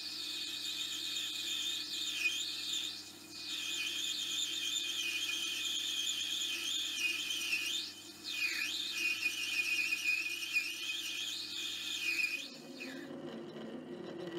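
Metal lathe cutting brass bar stock with a lathe tool, giving a high, wavering squeal over the steady hum of the lathe's motor. The squeal eases briefly twice and stops, along with the hum, near the end.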